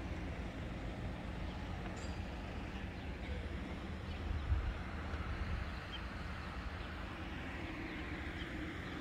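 Steady low rumble of vehicle noise in a town, with no single event standing out.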